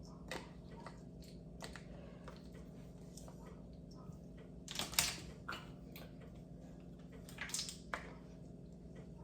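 Scattered light clicks and taps of a measuring spoon scooping grated cheese from its container, the sharpest about five seconds in, over a faint steady hum.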